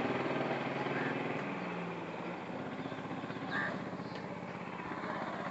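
An engine idling steadily with an even, rapid pulse, with faint voices in the background.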